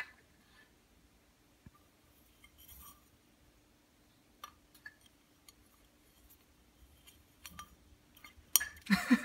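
Quiet room with a faint steady hum and scattered small clicks and taps. Near the end a loud voice starts.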